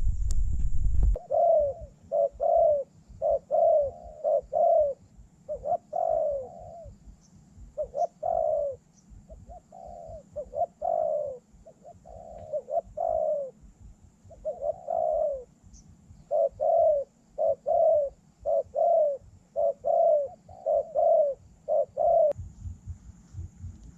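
Spotted doves cooing in the 'คู่อ่าง' duelling style: short, deep coos repeated in quick runs for about twenty seconds. They stop shortly before the end.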